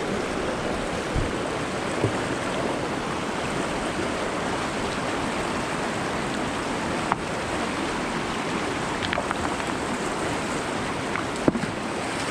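Shallow mountain river rushing steadily over stones, heard from the middle of the current. A few brief sharp knocks stand out, the loudest about seven seconds in and another near the end.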